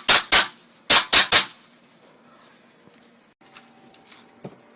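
Airsoft Desert Eagle pistol firing six shots in two quick groups of three, the groups about a second apart, followed by a few faint clicks.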